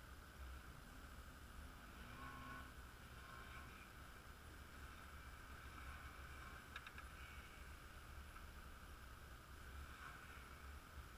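Near silence with a faint steady low rumble.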